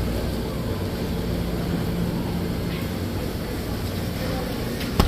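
Steady supermarket background hum and hiss, with one sharp click near the end.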